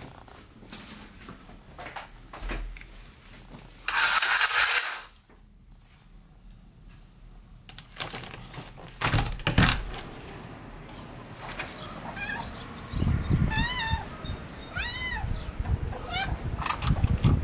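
Tabby cat meowing several times, short calls that rise and fall in pitch, in the second half. Before that comes a loud scraping rustle about four seconds in and a couple of thumps.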